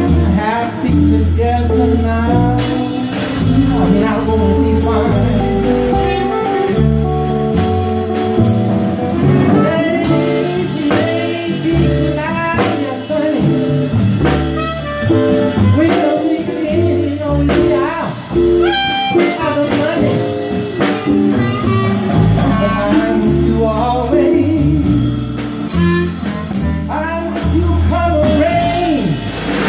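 Live blues-jazz combo playing: a clarinet carries bending melodic lines over an upright bass line, a drum kit and an electric guitar, with a voice singing.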